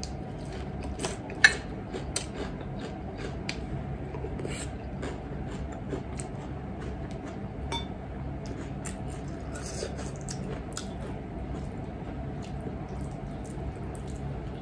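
Eating sounds: chewing and small mouth clicks, with a metal fork tapping and scraping on a ceramic plate as spaghetti is twirled. One sharp clink about one and a half seconds in is the loudest sound, over a steady low hum.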